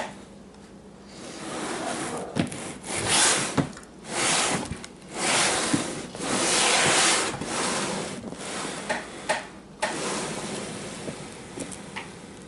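Cardboard sneaker box and its packing being handled: rubbing and rustling in several swells of a second or two each, with a few light knocks.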